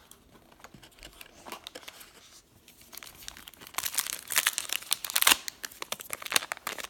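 An Allen and Ginter baseball card pack being torn open by hand, its wrapper crinkling and tearing in a dense run of quick crackles from about halfway in, after a few faint handling clicks.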